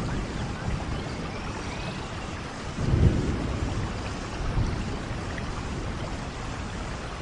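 Steady rainfall with a low rumble of distant thunder swelling about three seconds in and again more softly near the middle. A few faint bird chirps in the first two seconds.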